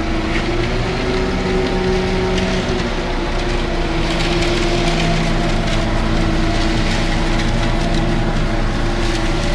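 A concrete mixer truck's diesel engine running as the truck moves slowly past: a loud, steady engine drone with a rattling mechanical noise over it.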